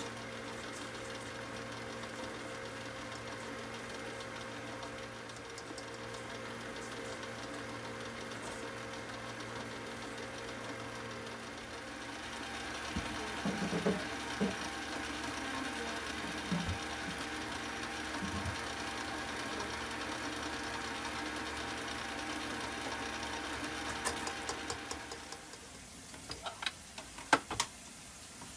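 Electric tilt-head stand mixer running steadily, its flat beater working a thick, crumbly batter in a steel bowl; the motor gets a little louder about halfway through. The motor cuts out a few seconds before the end, and a few sharp clicks and knocks follow.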